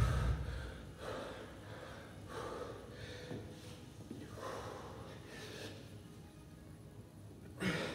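A man breathing hard from exertion, with short, noisy exhales about once a second and a louder exhale near the end.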